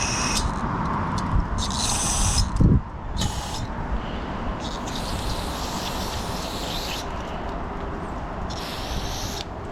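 Aerosol carburetor cleaner hissing in short spray bursts, about five of them and one lasting a couple of seconds, as it is sprayed into the small passages of a lawn tractor carburetor to flush out debris left by bad, watery fuel. A low thump a little under three seconds in.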